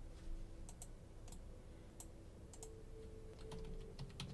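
Faint, irregular keystrokes on a computer keyboard: typing, a dozen or so clicks with uneven gaps.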